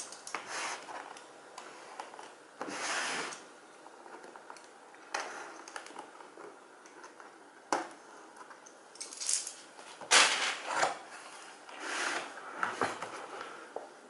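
A cardboard keyboard box being handled and opened on a desk: a series of short scrapes, rubs and knocks of cardboard, with a sharp tap about eight seconds in.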